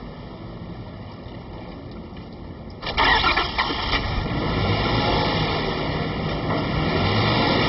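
Converted production-car engine fuelled by compressed hydrogen with water-mist injection, started with the key about three seconds in: a brief burst of starter cranking as it catches, then idling smoothly at about 1,000 rpm.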